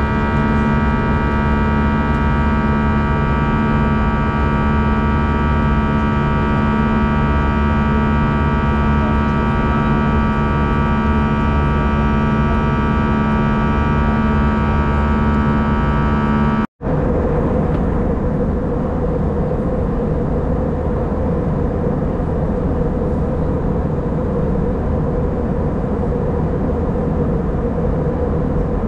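Jet airliner cabin noise in cruise: a steady engine and airflow drone carrying many steady whining tones. A little over halfway it cuts out for an instant and comes back as a smoother rush with one steady hum.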